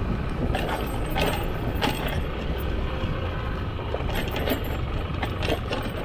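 Motor scooter running at riding speed, with a steady low rumble of wind and road noise on the microphone and a few short crackles.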